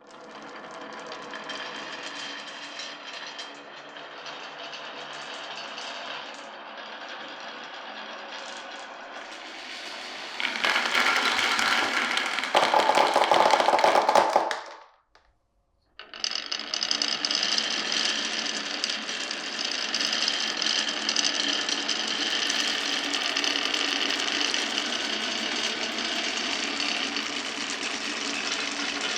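Glass marbles rolling and rattling along a marble run's tracks, a continuous rolling clatter. About ten seconds in it grows louder for a few seconds, then breaks off for about a second before a steady rolling rattle resumes.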